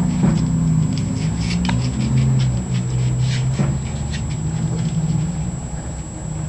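A dog whining in long, low, drawn-out tones that shift in pitch, with scattered soft clicks.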